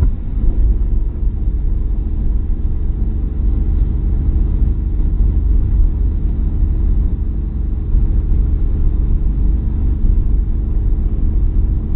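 Opel Corsa driving at speed, heard from inside the cabin: a steady low engine drone mixed with road and tyre rumble.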